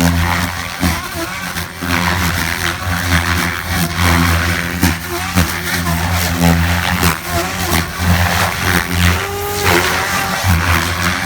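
SAB Goblin 570 electric RC helicopter in flight, its Xnova motor whine and rotor blade noise rising and falling as it manoeuvres.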